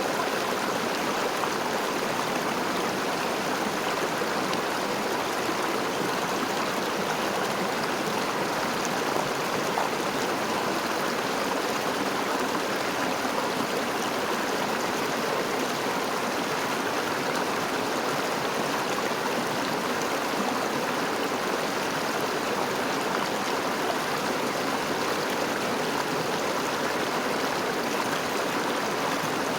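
River flowing, a steady, even rush of water with no breaks.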